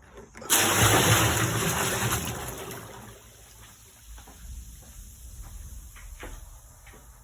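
Water gushing into a large plastic bin, loud from about half a second in and fading over the next couple of seconds. A few faint knocks follow.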